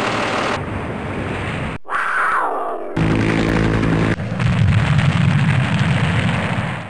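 Vehicle sound effects cut one after another, among them a semi truck and a helicopter. There is a burst of engine noise, then a falling tone about two seconds in, a steady engine hum about three seconds in, and a low rumble to finish.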